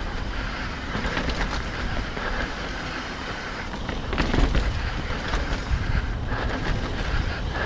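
Mountain bike riding down a rough dirt trail: tyres rolling and the bike rattling over bumps in a steady run of clatter, with a harder jolt about four seconds in.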